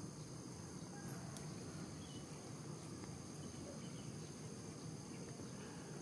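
Faint outdoor ambience: a steady high-pitched insect drone over a low, even background rumble.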